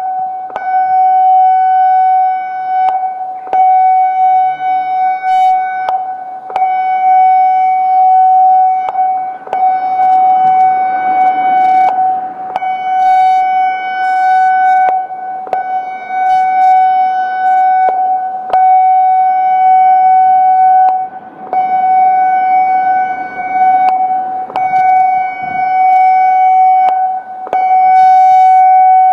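Federal Signal Modulator 6024 warning siren sounding its warning tone: one steady high pitch with overtones that swells and fades about every three seconds as the horn rotates.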